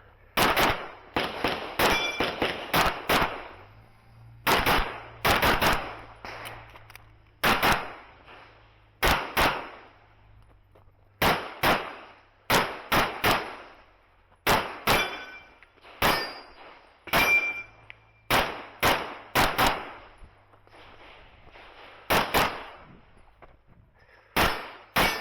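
Competition handgun fire from an optic-sighted pistol: quick pairs and short strings of shots with pauses of a second or two between them. Some shots are followed by a short metallic ring, typical of steel targets being hit.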